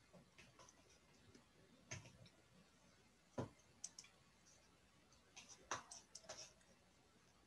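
Near silence broken by scattered faint clicks and small taps, the loudest about three and a half and six seconds in, with a cluster of them near the end.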